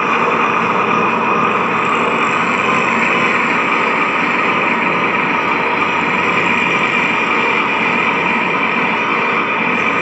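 Loud, steady wall of distorted noise from a chain of guitar effects pedals played through a guitar amplifier, holding without a break.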